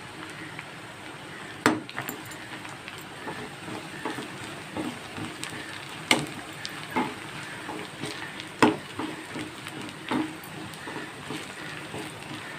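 Bitter gourd pieces coated in gram-flour and rice-flour batter sizzle steadily in hot groundnut oil while being stirred. A spatula knocks sharply against the pan several times.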